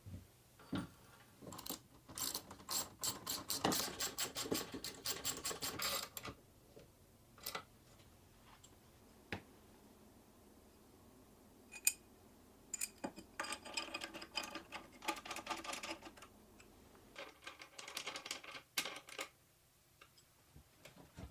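A ratchet clicking in three bursts of quick, even clicks as bolts are turned on an aluminium extrusion frame; the first burst, about two seconds in, is the longest. Between the bursts come a few single sharp knocks of metal parts.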